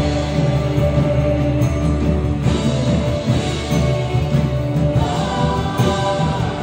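Live worship music: acoustic guitar and keyboard playing with a woman singing.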